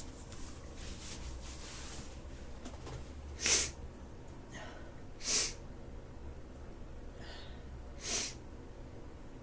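A woman with a head cold sneezing three times, short sharp sneezes about two to three seconds apart, with softer breaths between them.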